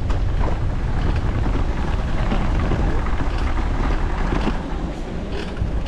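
Wind buffeting the microphone of a camera riding along on a moving bicycle: a steady, heavy low rumble that eases a little about four and a half seconds in.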